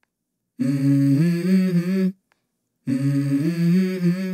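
Background music: two short phrases of a wordless, hummed vocal line stepping between notes, each about a second and a half long, separated by silence.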